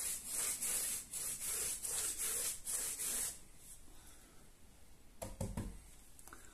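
A paintbrush dragged quickly back and forth along the top edge of a wall, bristles scratching over the surface at about three strokes a second. The brushing stops about three seconds in, and a brief low thump comes about two seconds later.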